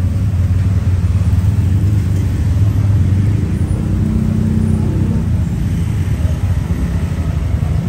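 Steady low rumble of motor traffic on a city street, with an engine's hum standing out briefly around the middle.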